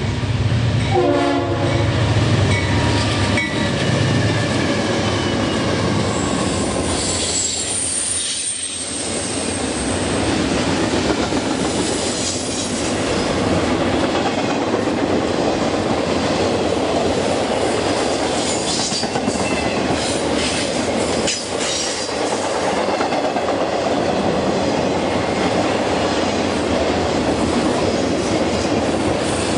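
Train passing close by: a short horn sound about a second in over a low diesel locomotive rumble, then railcars rolling past with wheels clacking over the rail joints and a high wheel squeal briefly, around eight seconds in.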